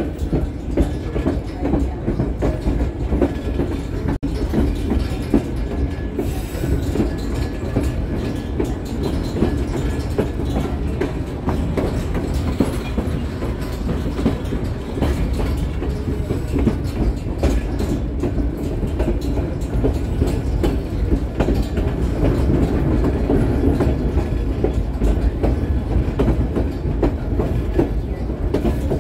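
White Pass & Yukon Route passenger railcar rolling along the track: a steady low rumble with wheels clicking over the rail joints, heard from the car's open platform.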